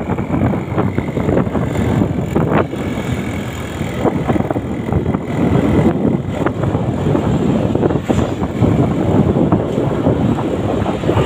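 Wind buffeting the microphone of a moving vehicle, a loud, gusty rumble over road and engine noise while travelling along a road.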